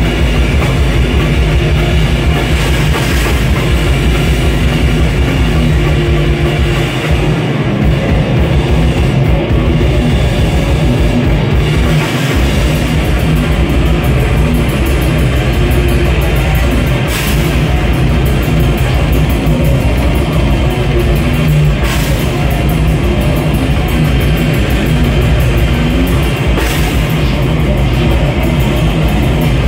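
Live band playing loud heavy music: distorted electric guitar over a drum kit, steady and dense.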